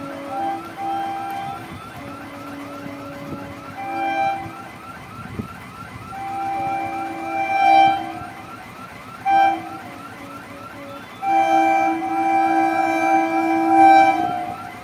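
Air horn of an approaching electric multiple-unit train sounding in a series of blasts: a few short toots, then two longer blasts, the last about three seconds long. A faint, fast repeating chirp runs underneath for most of the time.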